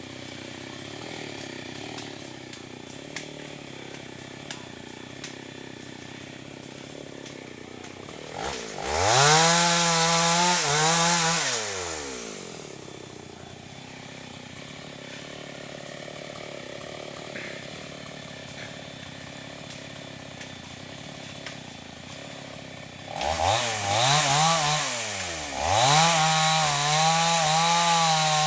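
Two-stroke chainsaw running slowly, then revved up to full speed for a few seconds about a third of the way in and dropping back. Near the end it revs up again and holds at full speed, dipping briefly as it cuts into wood.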